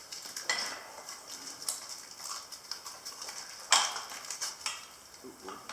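Scattered light clicks, taps and scrapes of hands working over a freshly vulcanised tire patch, with one sharper knock a little past the middle.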